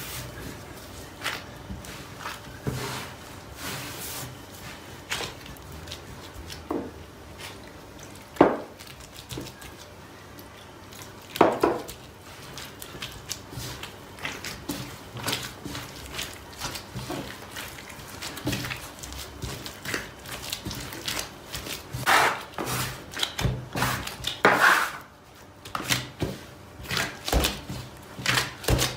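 Gloved hands kneading pide dough on a wooden worktop: irregular soft pats and knocks as the crumbly dough is pressed and gathered, with a few louder knocks. Near the end the strokes come quicker, a steady run of thuds about three a second.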